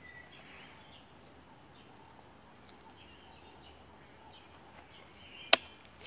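Faint outdoor background with a few thin, distant bird chirps, then a single sharp knock near the end.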